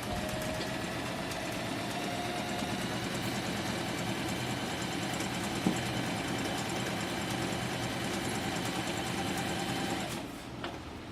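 Singer M3505 electric sewing machine running steadily as it stitches a line of fabric, its motor humming, with one sharp click about halfway; it stops about a second before the end.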